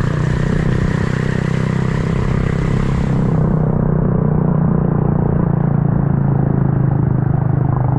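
Motorcycle engine running steadily at an even pace while riding, heard close up. A hiss in the high end cuts out suddenly about three seconds in.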